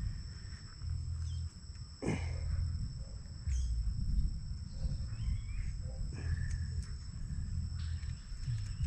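A steady high insect chorus holding two constant pitches, over a low rumble on the microphone, with a few faint clicks.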